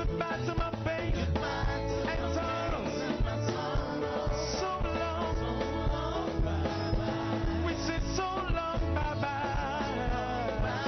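Live gospel worship music: a band with drums, bass and guitar playing an upbeat groove while singers sing.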